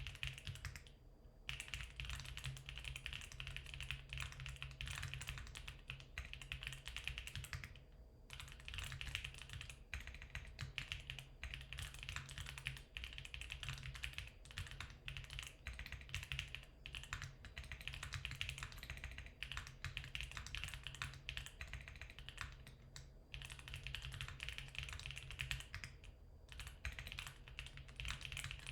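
Fast typing on a Geon Works F1-8K mechanical keyboard with factory-lubed Geon HG Black linear switches on a 1 mm aluminium plate, damped with plate and case foam: a steady stream of keystrokes with a few brief pauses.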